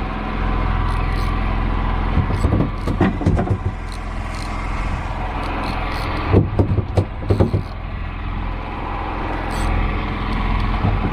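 A motor on a fishing boat runs with a steady low hum. Two short clusters of knocks and rattles come about two and a half seconds in and again about six seconds in, from the rod and spinning reel being handled while a fish is being played.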